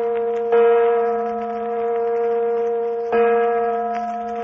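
A bell tolling slowly, struck twice about two and a half seconds apart, each stroke ringing on into the next. It is a radio-drama sound effect of a tolling church bell.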